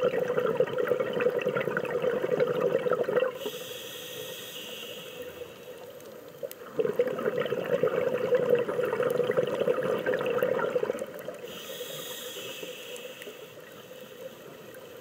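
Scuba diver breathing through a regulator, heard underwater: two long bursts of exhaled bubbles, each followed by a shorter hiss of inhaled air through the regulator.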